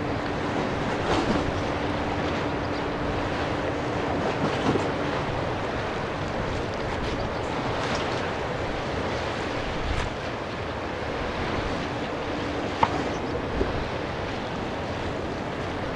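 Distant, steady rumble of an Airbus A330-300's jet engines on its takeoff roll down a wet runway, heard under wind and water noise. A steady low hum runs through the first few seconds and comes back near the end.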